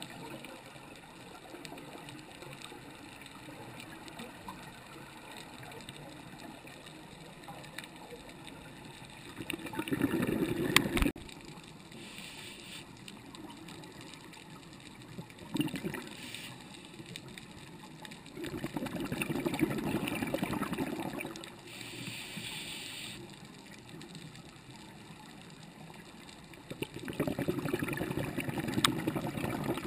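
Scuba diver's regulator underwater: three rushes of exhaled bubbles lasting two to three seconds each, plus a short one, with a shorter, higher hiss between them as the diver breathes in.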